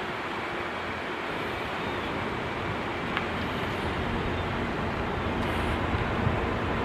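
Steady vehicle noise, an even rumble and hiss that slowly grows a little louder.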